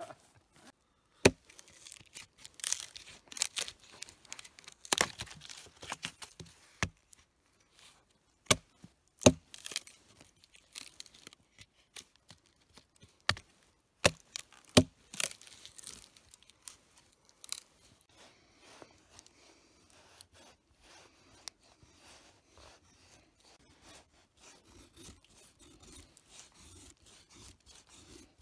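Firewood being handled: sharp knocks and cracks of wood, the loudest within the first fifteen seconds, amid scraping and rustling. Fainter scraping and rustling follow after that.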